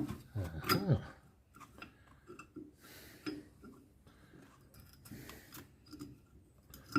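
Scattered light clicks and taps of brake parts and tools being handled during a brake pad change, with a brief mumbled voice about a second in.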